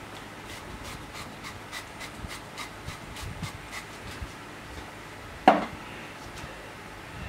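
Hand-pumped oil sprayer misting oil onto a hot plancha: a quick run of short hisses, about three a second, that dies away after about four seconds. One louder short sound about five and a half seconds in.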